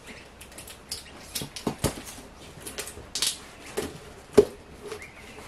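Cardboard box being handled and opened by hand: irregular scrapes, taps and rustles of cardboard and packing tape, with one sharp knock about four seconds in.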